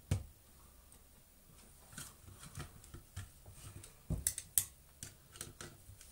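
Small plastic clicks, taps and scrapes as a screwdriver probes and prises at the plastic handle housing of a Dyson V10 cordless vacuum, trying to free the switch assembly. There is a sharp click at the start and a quick cluster of louder clicks about four seconds in.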